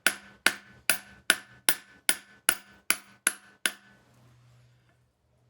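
Hammer tapping a pilot bearing into the center of a Subaru 2.5 SOHC flywheel: about ten even, ringing metal strikes, roughly two and a half a second, that stop a little before four seconds in.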